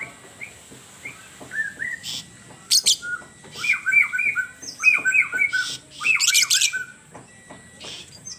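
Bird calling: quick runs of short, downward-slurred whistled notes, often in pairs, broken by sharp, harsh high-pitched chips, loudest in the middle of the stretch.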